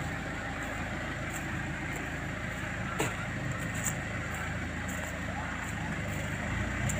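Vehicle engine running steadily as a low drone, its note shifting and growing a little louder near the end. A single sharp click about three seconds in.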